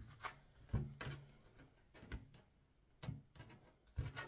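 Oracle cards being handled: a deck shuffled and knocked on the tabletop, giving a few sharp, irregularly spaced taps and flicks, the loudest about three-quarters of a second in.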